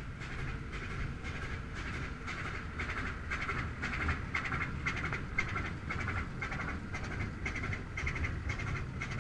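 Tugboat's Atlas-Imperial diesel engine running under way, a steady rhythmic beat of several pulses a second over a low rumble.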